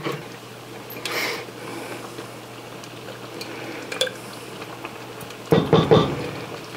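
Rubber spatula scraping Alfredo sauce out of a glass jar into a pan, with light clicks and a louder stretch of scraping and knocking near the end, over a faint steady hum.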